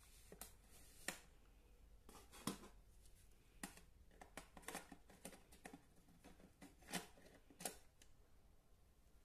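Irregular plastic clicks and clacks of a cassette being handled and slotted into the compartment of a vintage National cassette player, with a few sharp clicks standing out, the last ones as the cassette is pressed home.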